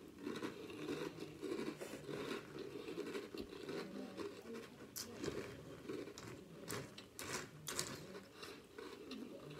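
A person chewing a mouthful of Drumstick mint chocolate chip cereal in milk: soft, irregular crunching with a few sharper crunches.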